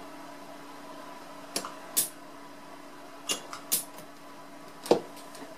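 Pneumatic solder paste dispenser giving about six short hisses and clicks, each one a pulse of air pushing paste out of the syringe onto the pads. A faint steady hum runs underneath.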